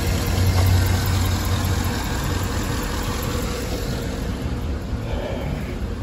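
A 2012 Cadillac Escalade's 6.2-litre V8 idling steadily with cylinder 7 dead: its cylinder-deactivation lifters are stuck, leaving that cylinder with almost no compression while the engine runs.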